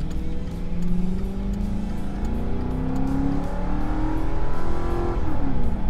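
2004 Mercury Grand Marquis's 4.6-litre V8, breathing through a Spectre high-flow air filter and a cat-back exhaust with AP Exhaust XLerator mufflers, under full-throttle acceleration, heard from inside the cabin with the windows up. The engine pitch climbs steadily, falls at an upshift about three and a half seconds in, climbs again, and falls at another upshift near the end.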